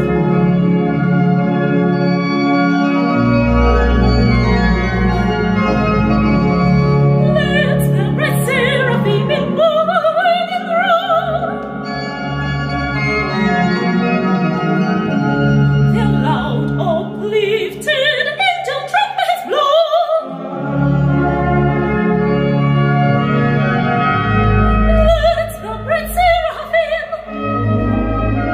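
A church organ playing sustained chords with a low bass line, and a soprano singing classical phrases over it with wide vibrato, first entering about eight seconds in.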